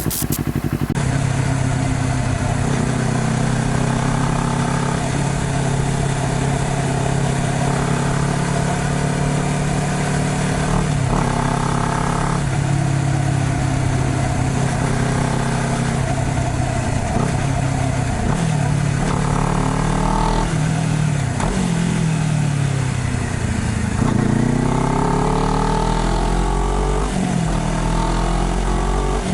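Honda CBR250RR motorcycle engine running under way, revving up through the gears with several shifts where the pitch drops, then climbs again.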